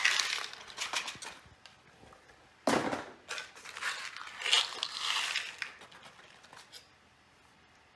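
Small cardboard boxes of screws being handled: rustling and rattling in a few bursts with scattered clicks, the loudest starting sharply about three seconds in.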